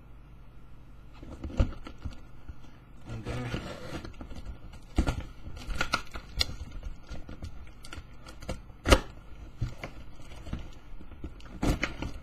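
Cardboard shipping box being opened by hand: a utility knife cutting packing tape and cardboard flaps being pulled and torn, with irregular rustling and scattered sharp clicks and knocks, the loudest about nine seconds in.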